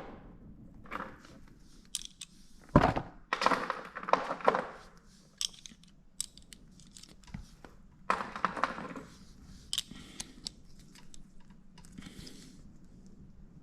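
Irregular clicks, knocks and rustling of bicycle parts and tools being handled during disassembly, with one sharp knock about three seconds in and busier clatter around four seconds and again around eight seconds.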